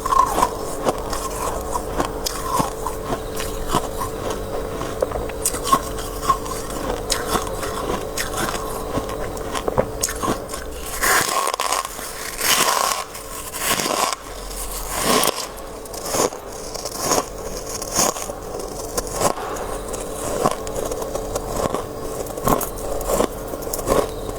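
Close-up crunching bites and chewing of shaved freezer frost, with scraping. Louder crunch-and-scrape stretches come about halfway through, over a steady faint hum.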